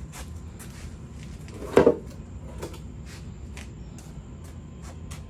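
A single short knock about two seconds in, among faint scattered clicks and handling noise.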